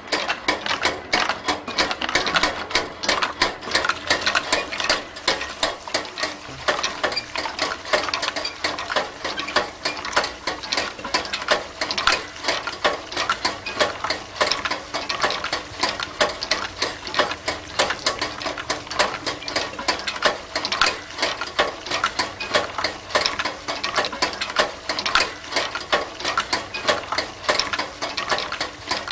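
Continuous rapid, irregular mechanical clicking and clattering, many small strikes a second.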